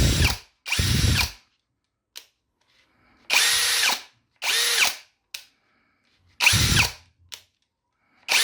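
Brushless cordless impact drill run in about six short bursts, each spinning up and winding down within a second, with small clicks in the pauses between runs.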